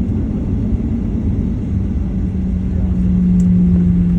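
Cabin noise of a Boeing 737-800 rolling on the ground just after landing: a steady low rumble, with a steady hum coming in about two seconds in and growing louder.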